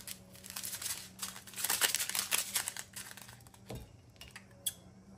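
A small plastic bag of diamond-painting drills crinkling and rustling, with fine clicks of the tiny resin drills inside. The rustling is busiest in the first three seconds, then gives way to a few scattered clicks.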